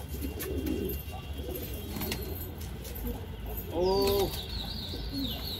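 Domestic pigeons cooing steadily, with one louder coo about four seconds in. A series of high falling chirps from a smaller bird comes in just before it and repeats toward the end.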